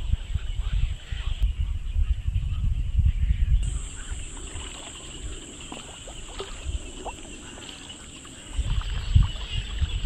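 Insects singing steadily in a high, thin drone that grows louder in the middle, over wind rumbling on the microphone in gusts at the start and again near the end.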